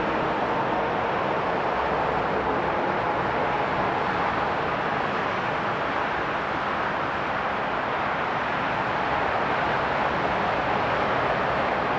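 Boeing 757-200 freighter's turbofan engine running steadily during a ground engine test: an even, unbroken rushing noise with a faint steady tone through it.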